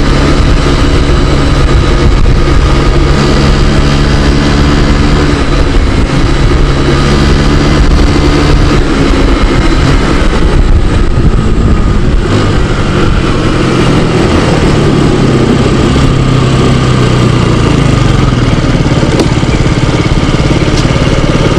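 Scooter engine running on the move, with wind and road noise; the engine note shifts in pitch with speed and falls away as the scooter slows, about three quarters of the way through.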